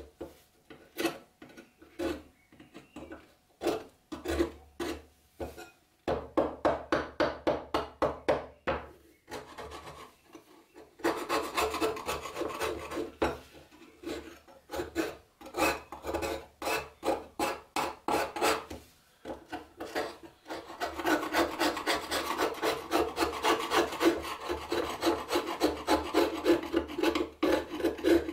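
A flat steel scraper scraping thick rust off a steel knife blade in repeated strokes. The strokes come singly and spaced out at first, then turn fast and nearly continuous from about six seconds in, with a couple of short breaks.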